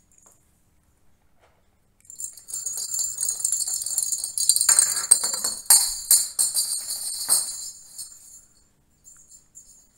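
Small bell inside a plastic cat-toy ball jingling and rattling as the ball rolls across a glass tabletop. It starts about two seconds in, is loudest in the middle with some clattering, and dies away near the end.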